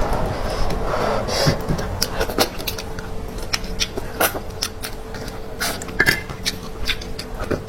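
Close-miked eating sounds of someone chewing spicy rabbit head: irregular sharp clicks, wet snaps and crunches at uneven intervals, over a faint steady hum.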